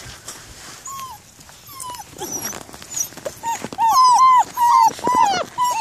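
German Shepherd puppies, about six weeks old, whining and yelping in short, high cries. There are only a few at first, then many in quick succession, sometimes overlapping, from a little past halfway.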